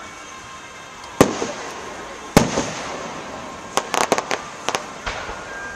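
Fireworks: two loud booms of aerial shells bursting, about one and two and a half seconds in, each trailing off in an echo, then a quick run of sharp crackling pops near the end.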